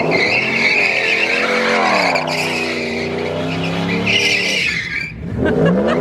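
Ram 1500 pickup doing a donut: tyres squealing while the engine revs up and down, easing off briefly about five seconds in and then revving and squealing again.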